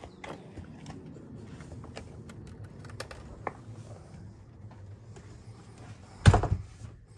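Scattered light clicks and taps over a low hum, with a single loud knock about six seconds in.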